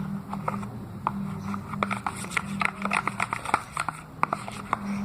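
A utensil stirring a thick glue mixture in a bowl, giving many short, irregular clicks and taps against the container. A low steady hum runs underneath.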